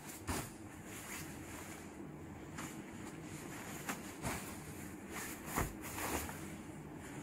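Several short rustles and knocks, about five, as windcheater jackets are handled and moved about, over a steady low background noise.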